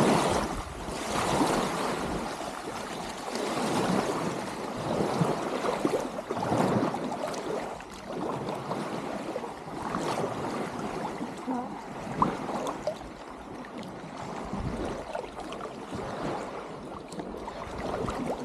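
Rushing, uneven wash of water and wind noise that swells and fades throughout, typical of riding in an open boat on a river.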